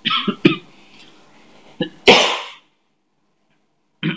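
A person sneezing: short breathy voice sounds at the start, then one loud, sudden sneeze about two seconds in.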